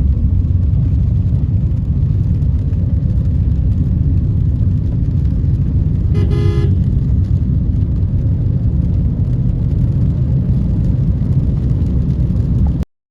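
Steady low rumble of a vehicle on the move, with a single short horn toot about six seconds in. The sound cuts off abruptly near the end.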